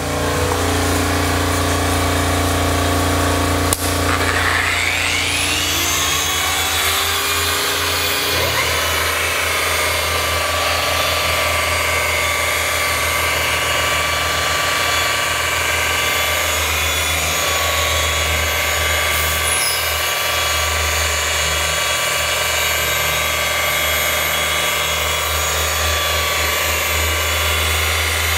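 Handheld machine polisher running on a car hood's paint. After a sharp click about four seconds in, its pitch rises as it comes up to speed, and it then runs steadily.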